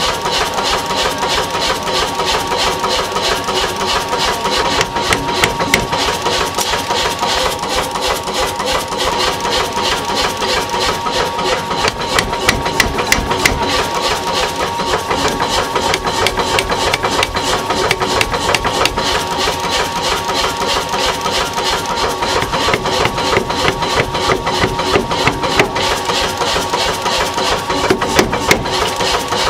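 Power hammer (maglio) running and striking hot iron on its anvil in rapid, repeated blows over the steady hum of its motor.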